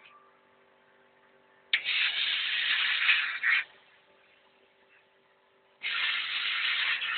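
Two bursts of hissing spray, each about two seconds long, starting and stopping sharply. The first comes about two seconds in, the second near the end, with a faint steady hum between them.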